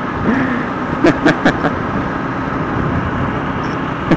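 Motorcycle riding through city traffic: steady engine, tyre and wind noise on a helmet-mounted microphone. About a second in, a man's voice makes four quick short sounds.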